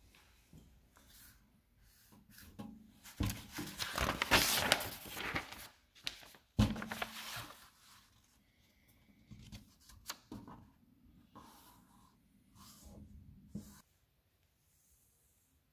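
Paper pages of an assembly manual being handled and turned: irregular paper rustling, loudest a few seconds in, with a sharp knock about six and a half seconds in and a few softer rustles and clicks after, stopping near the end.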